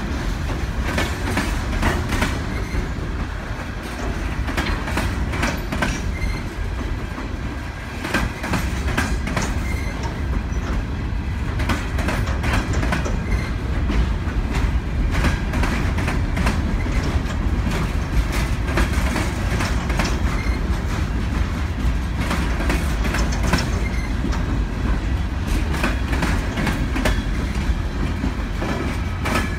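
Aluminum coal hopper cars of a freight train rolling past: a steady low rumble with wheels clicking over rail joints.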